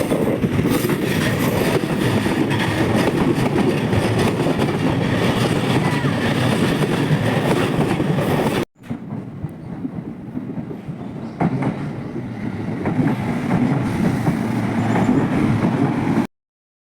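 Ome Line electric train running past along the track, a steady rumbling noise of the train on the rails. It cuts off abruptly about halfway through, comes back at a lower level, and stops dead shortly before the end.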